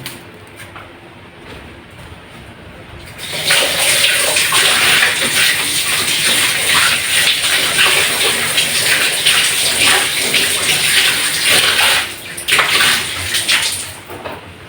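Kitchen tap running, with water splashing over green onions being rinsed. The water comes on about three and a half seconds in and stops about twelve seconds in, then a shorter splash follows.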